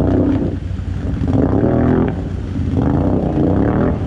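ATV engines revving up and down repeatedly, about once a second, as the quads work through icy pond water.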